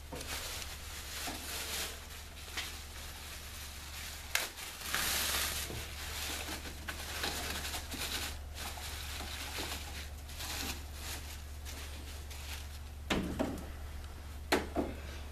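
Thin plastic sheeting crinkling and rustling as it is spread and tucked over a truck's engine bay to mask it off before spray-painting, over a steady low hum. The crinkling comes in irregular handfuls, busiest about five seconds in.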